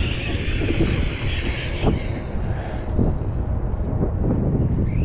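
Redcat Kaiju RC truck driven hard: its brushless electric motor's high whine rises and falls with the throttle, then fades about two seconds in. Scattered thumps and a low rumble run underneath.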